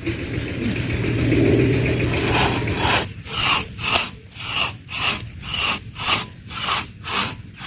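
Saw cutting through tree wood: a steady rasp for about the first three seconds, then separate strokes at about two a second.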